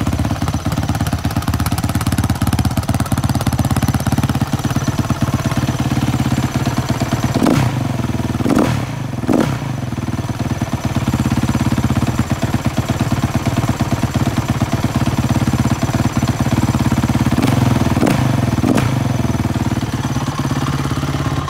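SWM SM 500 R supermoto's single-cylinder four-stroke engine idling through its exhaust. Three quick throttle blips come about seven to nine seconds in, and three more about seventeen to nineteen seconds in.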